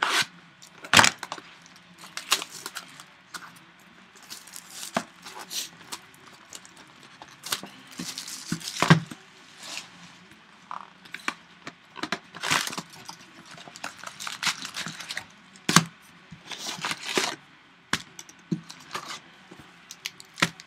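A cardboard trading-card box being opened and its foil card packs handled and stacked: irregular crinkling, rips and sharp clacks of cardboard and foil wrappers, the sharpest about a second in, near nine seconds and near sixteen.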